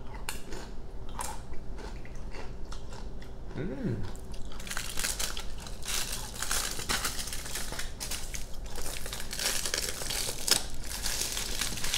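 Close-up crunching of a tortilla chip being chewed. From about four and a half seconds in, dense crinkling and crackling of aluminum foil as the wrap is peeled back from a burrito.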